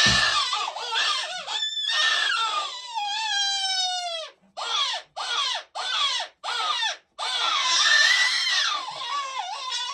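Electronic predator call playing wailing animal calls to lure coyotes. It gives a long falling wail, then about five short yelps roughly two a second, then a long wavering wail.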